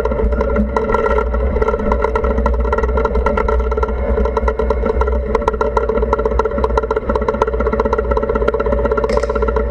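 A tank's engine running steadily, heard from a camera mounted on its turret, with a constant low rumble and a dense rattling clatter over it.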